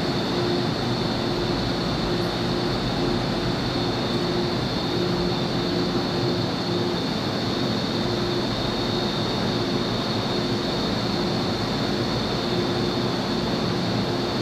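Steady metro platform ambience: the even hum and hiss of an MTR Island Line train standing at the platform and the station around it, with a constant high hiss. No train is arriving or departing.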